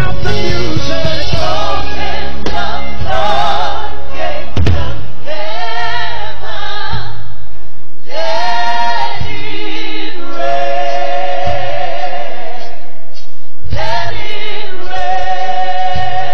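Live gospel worship music: voices singing with a wavering vibrato over band accompaniment. The deep bass drops out about four and a half seconds in.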